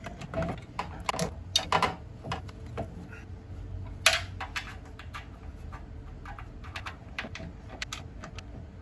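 Irregular light clicks and taps of a chrome metal license plate frame and its mounting bolts being handled and fitted against a motorcycle's rear fender, with one sharper click about four seconds in.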